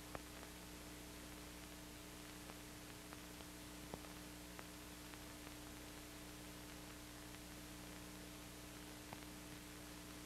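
Near silence: the steady hiss and low hum of an old film soundtrack, with a few faint clicks.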